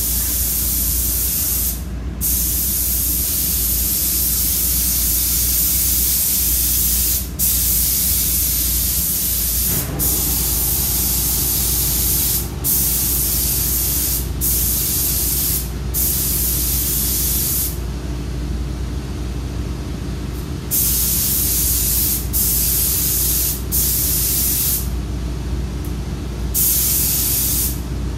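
Siphon-feed air paint spray gun hissing as paint is sprayed onto a truck fender in long passes. The hiss cuts out briefly about ten times as the trigger is let off between strokes, with two longer pauses, over a steady low hum.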